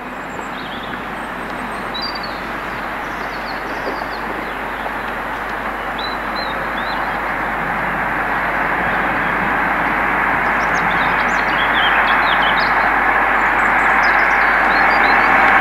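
Passenger train approaching along the main line, its running noise growing steadily louder as it nears. Birds chirp over it.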